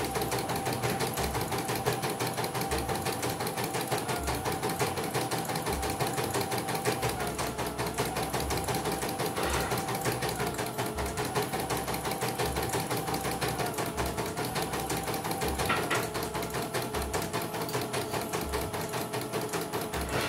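CNY portable computerized embroidery machine stitching at a steady rapid pace: a fast, even needle rattle over a motor whine that breaks off or shifts briefly every three or four seconds, with two short clicks partway through.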